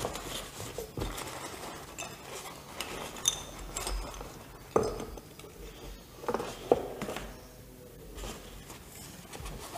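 Hands handling and opening a fabric drawstring pouch and the small plastic nozzles inside it: soft rustling with a few light clicks and taps, the sharpest a little under halfway and about two-thirds in.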